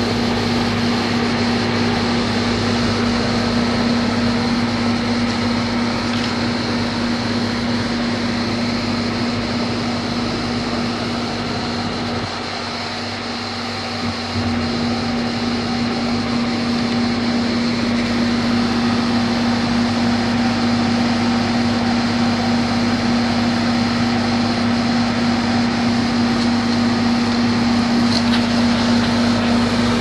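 Goodman air-conditioning condenser unit running: a steady electrical hum under the even rush of its top-mounted fan blowing air out through the coil.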